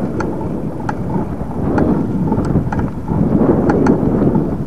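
Wind buffeting an action camera's microphone while cycling: a heavy, uneven rumble with a few sharp clicks scattered through it.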